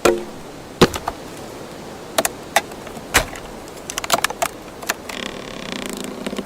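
Sharp wooden cracks and knocks at irregular intervals, with a quick run of them about four seconds in, then a short creaking scrape near the end.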